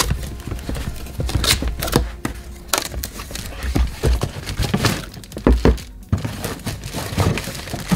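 Cardboard box being opened by hand: flaps pulled open and a cardboard insert drawn out, with scattered knocks, scrapes and thunks of the packaging on the table and some crinkling of plastic wrap.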